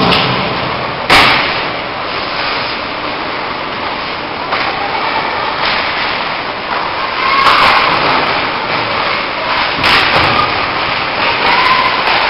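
Ice hockey play in an arena: a steady haze of skating and crowd noise broken by sharp knocks of sticks and puck. The loudest crack comes about a second in, with several lighter knocks later on.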